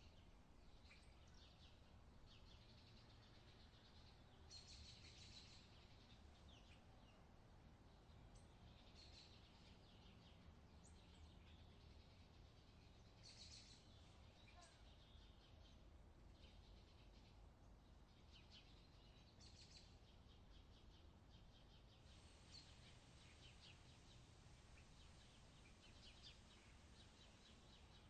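Faint summer outdoor ambience: scattered high chirps and short trills every second or two over a low steady rumble, thickening into a near-continuous trill in the last few seconds.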